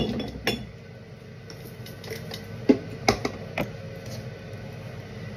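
Kitchen clatter: a few sharp knocks of utensils against a bowl, several close together partway through, over a steady low hum.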